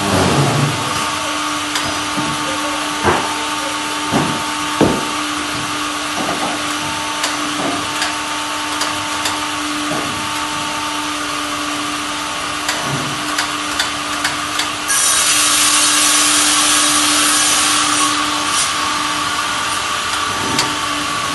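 A band sawmill with a hydraulic log carriage running: a steady mechanical hum with several sharp knocks in the first five seconds, and a louder high hissing rush for about three seconds from roughly fifteen seconds in.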